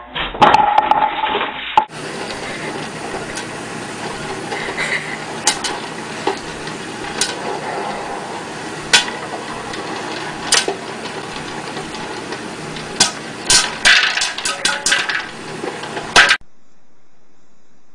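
Popcorn popping in a popper with a clear dome lid: a steady hiss of hot oil under sharp pops of kernels, sparse at first and coming thick and fast near the end, then cutting off suddenly. A brief loud clatter of knocks comes at the very start.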